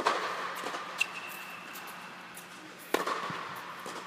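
Tennis racket striking the ball hard twice, about three seconds apart: a serve, then a groundstroke, each a sharp pop that echoes through the air-supported dome. A fainter hit about a second in is the return from the far end of the court.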